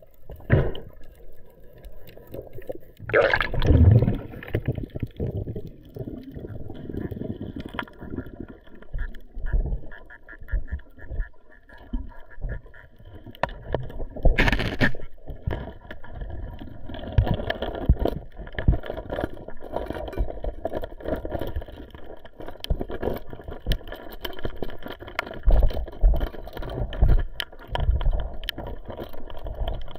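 Underwater sound picked up through a diving camera's housing: muffled rumbling and knocking as the freediver moves along the reef ledge, with scattered faint clicks. Two louder whooshing rushes stand out, one a few seconds in and one about halfway through.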